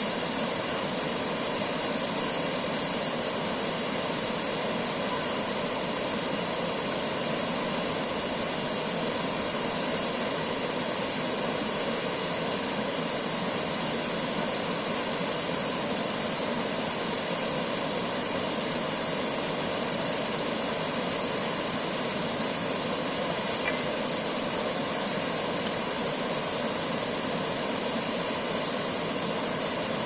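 Small waterfall: stream water pouring steadily over low rock ledges into a pool, a constant even rush of water.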